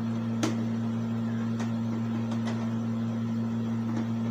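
Four short clicks of a light box's battery compartment cover being pried at with a thin tool, the first about half a second in the loudest; the cover does not come open. A steady low hum runs underneath.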